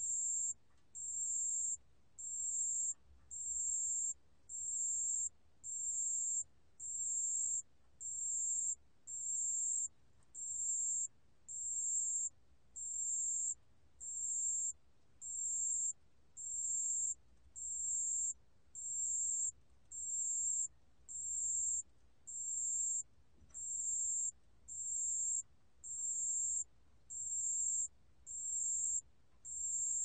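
담색방울벌레, a small Korean bell cricket, singing at 28 °C: a high, pure trill in even phrases, each well under a second long with short gaps, repeated about once a second.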